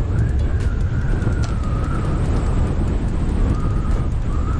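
Wind buffeting the microphone in a steady low rumble, with a thin whistle that wavers up and down in pitch through most of it.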